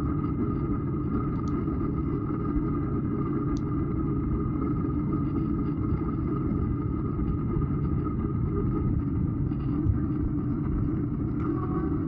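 Steady rumble of wind on the microphone and tyre noise while riding a bicycle, with a faint tick now and then.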